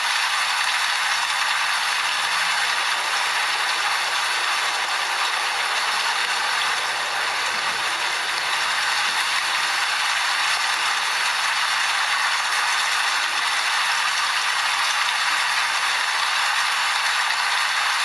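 Rain falling steadily, a dense, even hiss of drops with no low rumble.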